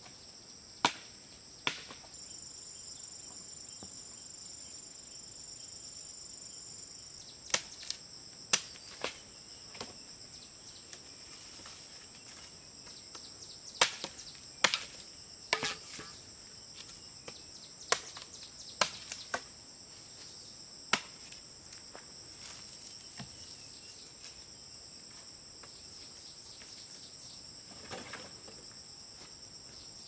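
Steady, high-pitched chirring of insects, with about a dozen sharp knocks at irregular intervals, most of them in the first two-thirds.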